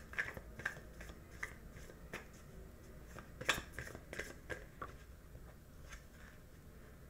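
A deck of oracle cards being handled and shuffled: an irregular run of faint, light clicks and flicks of card edges, the sharpest about three and a half seconds in.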